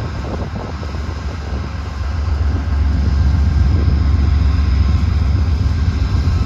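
VIA Rail P42 diesel locomotive running at a standstill: a steady low engine rumble with a high, steady whine above it, growing louder about two and a half seconds in as the train prepares to depart.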